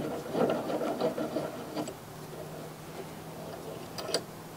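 Bench vise being cranked tight on a steel oil filter can: the screw and sliding handle rattle and click for about the first two seconds, then a few sharp clicks about four seconds in.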